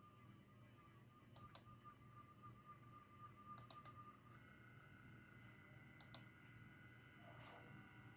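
Roco 79047 model locomotive's electric motor running with a wavering whine that steps up in pitch about four seconds in, with a sharp click every two seconds or so. The owner finds this motor jerky up to speed step 4 and unusually loud for a Roco.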